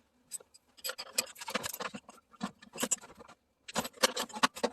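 Irregular clicks, knocks and light metallic clatter of hand tools and parts being handled, coming in short clusters with brief pauses, while a pulley is being worked off a push-mower engine's shaft.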